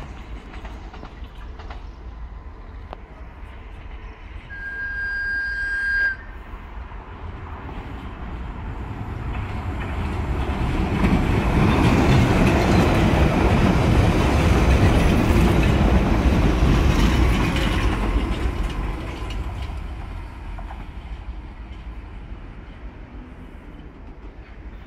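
London Underground Piccadilly line 1973 Tube Stock train sounding one short steady horn note that cuts off sharply, then running at speed through the station without stopping: a rumble and rattle of wheels on rails that builds, peaks as the carriages pass and fades away.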